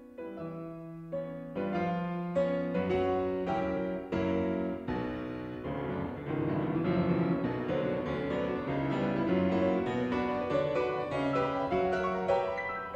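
Background piano music: a flowing line of notes over chords, played without a break.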